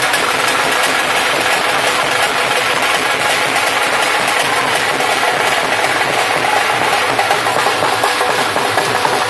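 Loud, continuous drumming with music, a dense fast beat that runs on without a break.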